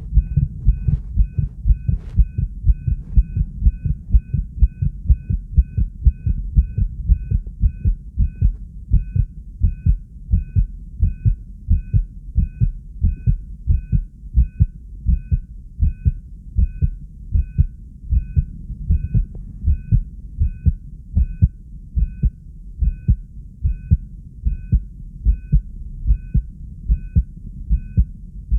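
Amplified human heartbeat, low thumps about two a second, from an excited subject whose heart is beating fast.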